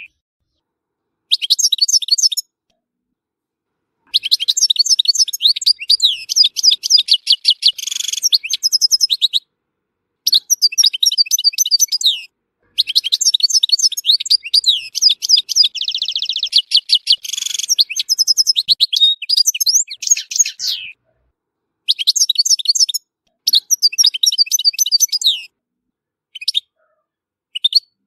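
European goldfinch singing: long, rapid twittering phrases of quick pitch-sweeping notes with a brief buzzy passage in the middle, broken by short silent gaps.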